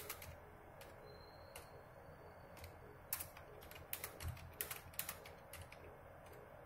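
Faint keystrokes on a computer keyboard, typing at an uneven, slow pace. They are sparse at first and come in a quicker run from about three seconds in.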